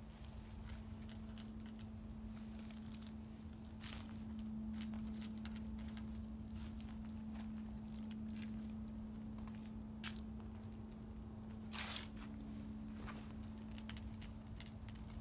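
A cat eating from a plastic tray: small wet chewing clicks and smacks keep coming, with two louder brief scuffs about four seconds in and near the end. A steady low hum runs underneath.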